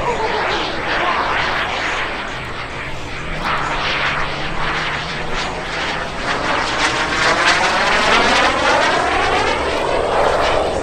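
Subsonex JSX-2 mini jet's single small turbojet engine running as the jet flies aerobatics overhead, a steady jet roar. Over the last few seconds the noise takes on a sweeping quality that rises in pitch as the jet passes.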